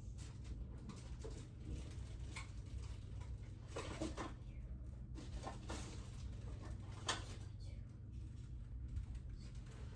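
Faint rummaging in a closet: a few scattered knocks and rustles over a steady low hum, with the sharpest knock about seven seconds in.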